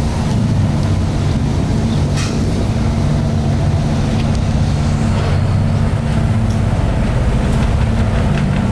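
Steady low drone of a car ferry's diesel engines under way, heard on board near the stern, with the rushing hiss of the wake and wind.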